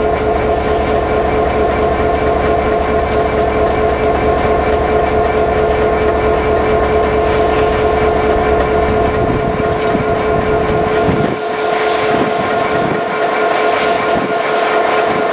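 A train running close past the platform: a loud, steady two-note whine over a low rumble, with a quick regular clicking of wheels over rail joints. About eleven seconds in, the lower note and the rumble drop away while the clicking carries on.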